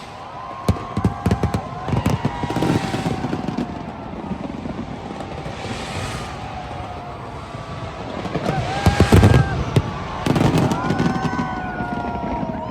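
Fireworks going off: clusters of rapid sharp cracks and bangs come in several bursts, the loudest near the end, over a steady rumble, with whistles gliding in pitch.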